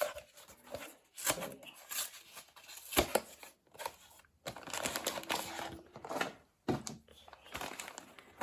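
A stuck cardboard blind box being worked open by hand: scattered clicks and taps of cardboard, with stretches of rustling packaging, the longest about halfway through.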